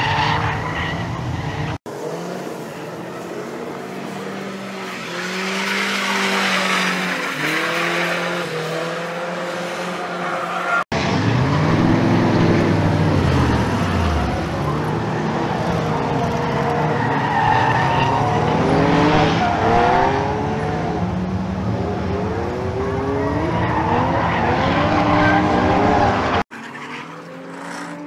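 Nissan 240SX (S14) drift cars sliding through a course, with engines revving up and down repeatedly and tyres squealing and screeching under wheelspin.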